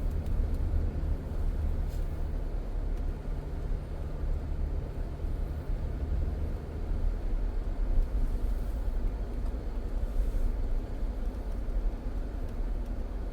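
Car driving along a road: a steady low engine and tyre rumble, with a faint steady hum that fades out about seven seconds in.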